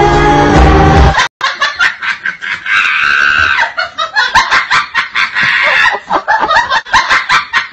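Music with a heavy beat for about the first second, cutting off abruptly; then people laughing hard, in rapid high-pitched giggles and shrieks.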